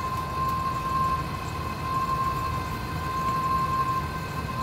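Steady low engine rumble with a continuous high-pitched whine held on one note over it.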